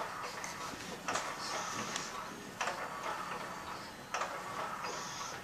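Battery-powered baby swing running, its drive motor whirring with a click at each swing of the seat, repeating about every second and a half.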